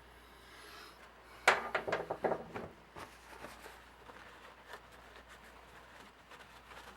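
A quick run of sharp metal clicks and knocks, the first the loudest, as tools and parts are handled at a metal lathe, followed by a few faint small clicks.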